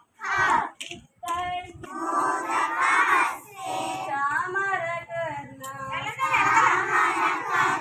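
A group of young girls singing together in short phrases, with brief breaks between lines.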